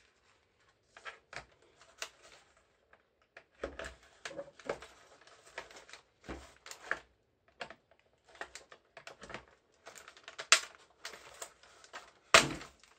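Plastic computer keyboard parts being handled during disassembly: irregular clicks, taps and rattles of the plastic case, frame and rubber dome sheet, with two louder knocks near the end.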